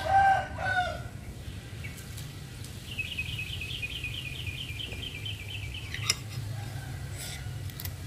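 A rooster crowing, its call ending about a second in, then a bird giving a quick run of high repeated notes, about five a second for some three seconds, over a steady low hum.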